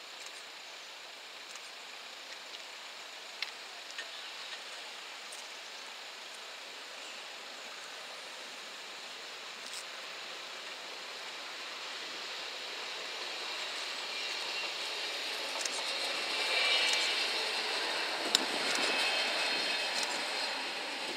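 A Talent diesel multiple unit approaching and passing over the level crossing: a rush of engine and wheel-on-rail noise that swells over the second half and is loudest near the end, with a sharp click from the wheels on the rails.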